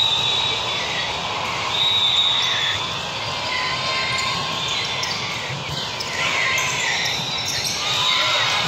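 Indoor volleyball rally on a hardwood court: ball hits and short high sneaker squeaks, over the steady noise of a busy gym.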